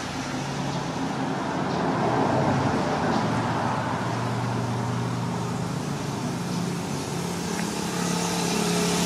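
Steady low engine hum over a noisy hiss, like a motor vehicle running nearby, with no clear start or stop.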